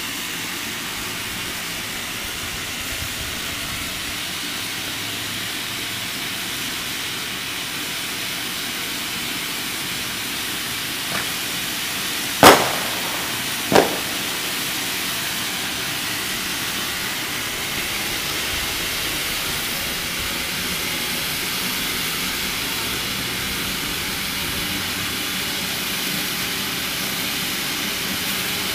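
Zuckerstock ground fountain firework spraying sparks with a steady hiss. Near the middle come two sharp bangs a little over a second apart, the first the loudest, with a fainter crack just before them.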